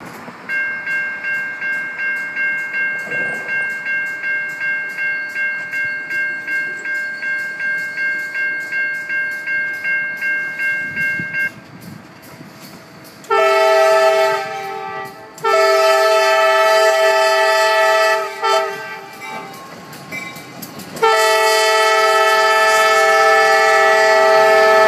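A warning bell rings in quick, steady strokes, about three a second, then stops about halfway through. Then a diesel locomotive's air horn sounds the grade-crossing signal: two long blasts, a short one, and a long one that is still sounding at the end.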